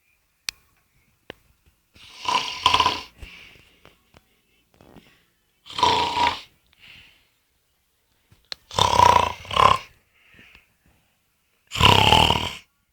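Heavy snoring: four loud snores about three seconds apart, one of them broken in two, with faint breathing between.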